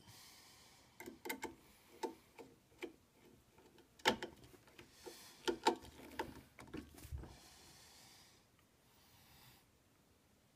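Light irregular clicks and ticks of a screwdriver and wire ends working the small screws of a screw terminal strip as stepper-motor wires are fastened, the sharpest clicks about four and five and a half seconds in.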